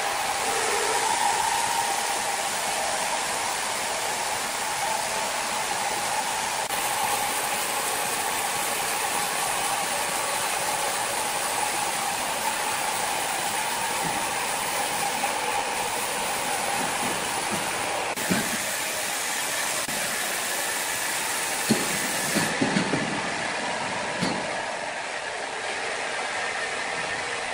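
Large horizontal band sawmill running and sawing through a big hardwood log: a steady mechanical hiss with a constant whine. A few short knocks come in the last third.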